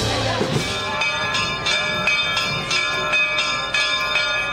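Church bell pealing, struck rapidly about three times a second, starting about a second in as a drum beat ends.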